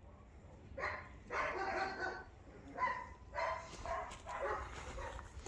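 A dog barking repeatedly: short calls in quick succession, with a brief pause about a second in.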